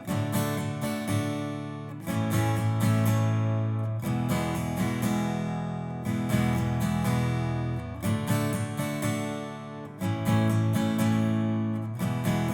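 Guitar strumming open E major, D major and A major chords in a Mixolydian rock progression, the strums pushed onto the offbeat in a syncopated up-down pattern. The chord changes about every two seconds, and the progression goes round twice.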